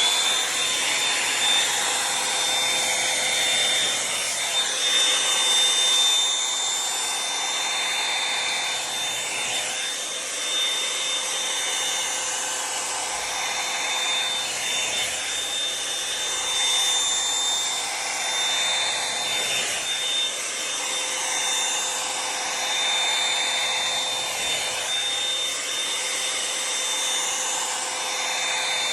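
Revlon One-Step hair dryer brush running steadily: a loud blowing rush with a thin high whine, swelling and dipping every few seconds as it is worked through the hair.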